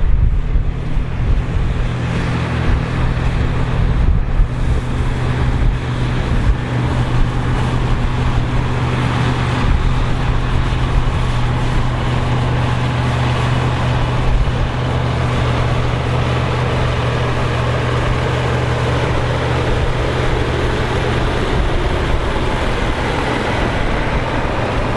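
The heavy engine of vintage harvest machinery running steadily at constant speed, with a slight change in its note about four seconds in.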